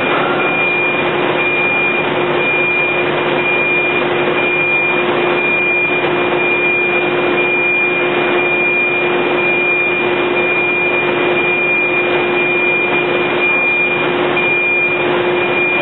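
Steady machinery noise on a thin-film solar panel production line, with a constant low hum and a thin high tone that drops in and out.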